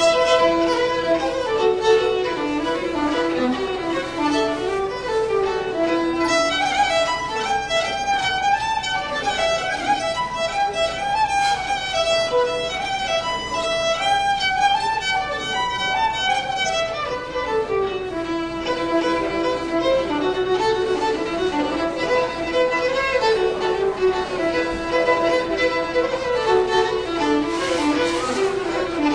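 Solo fiddle playing a tune, the melody climbing into a higher register for about ten seconds partway through before settling back down.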